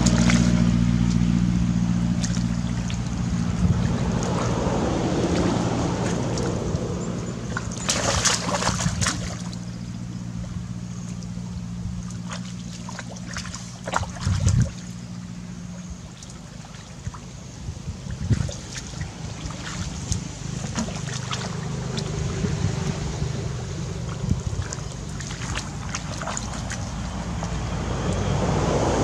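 Sloshing and splashing of shallow muddy water as someone wades and gropes through it by hand, with louder splashes about eight and fourteen seconds in. A steady engine drone runs underneath and fades away about halfway through.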